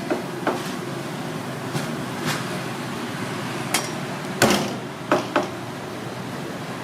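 Sharp clacks and knocks of cooking utensils at a street food stall, about eight of them at irregular intervals, the loudest about four and a half seconds in, over a steady hum of street noise.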